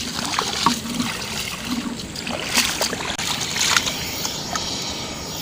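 Shallow water splashing and trickling as a hand moves in it, with a couple of sharp clicks.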